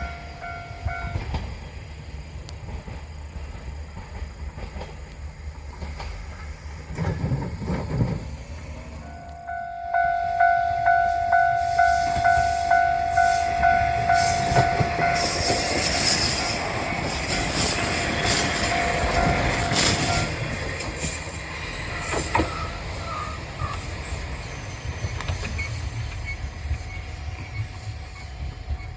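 A train runs over the line with rumble and wheel clatter. From about a third of the way in, a Japanese level-crossing warning bell rings in a quick steady 'kan-kan' rhythm of about two strokes a second, stopping about two-thirds through, after which the train noise eases off.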